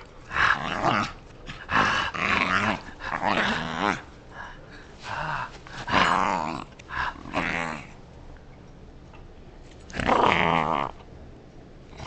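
Black puppy growling in play over its ball: a run of short growls about a second apart, a pause of a couple of seconds, then one more growl near the end.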